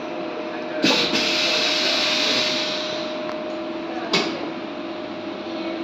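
Automatic high-frequency PVC welding machine working through a cycle over a steady hum. About a second in there is a sharp clack, then a long hiss of air that fades over about two seconds. Another clack with a short hiss comes about four seconds in.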